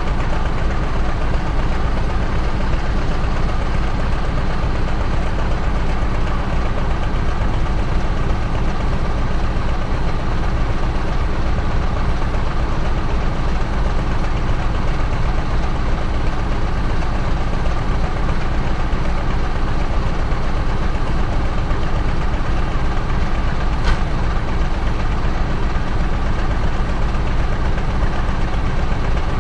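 A heavy diesel engine running steadily at idle, with an even, unchanging level throughout.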